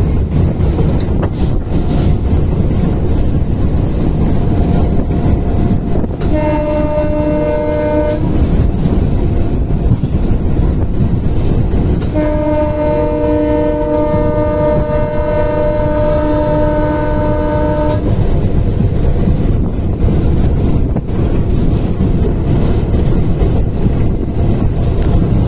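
Train horn sounding twice over the steady rumble of a moving train: a short blast of about two seconds, then a long one of about six seconds, each holding two notes at once.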